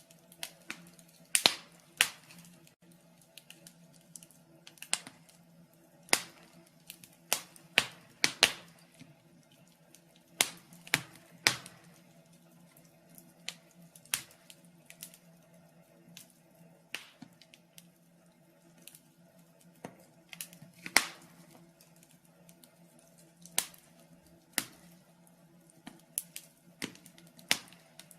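Wood fire crackling in a fireplace: irregular sharp pops and snaps, about one a second, some much louder than others, over a faint steady low hum.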